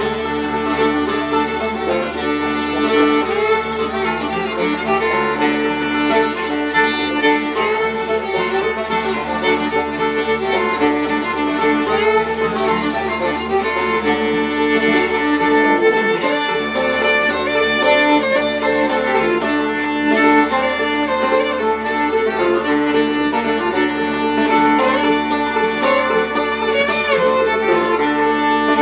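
Instrumental break of a bluegrass tune: fiddle leading over banjo and guitar, with a steady low didgeridoo drone underneath.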